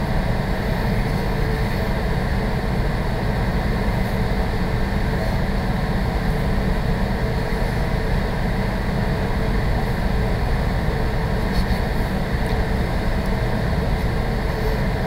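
Steady low hum and hiss of room noise, with faint scratches of a felt-tip marker drawing on paper.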